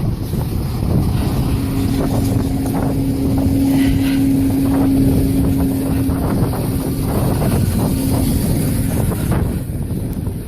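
Strong wind buffeting the microphone, with a steady vehicle engine hum from about a second in until shortly before the end.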